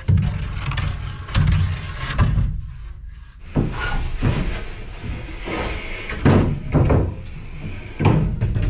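A string of irregular knocks and thumps as things are picked up, moved and set down while a cluttered workspace is being cleared.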